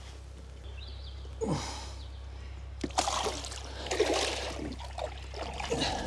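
Water splashing and sloshing in several irregular bursts, most of them in the second half, over a steady low hum.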